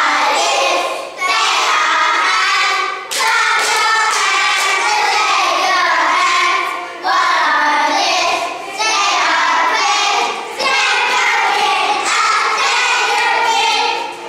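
A group of young children singing loudly together in unison, in phrases a few seconds long with brief breaks between them; the singing stops just before the end.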